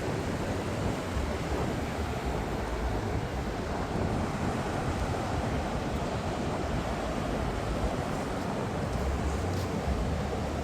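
Atlantic Ocean surf breaking and washing on the beach, a steady rush with no let-up, with wind rumbling on the microphone.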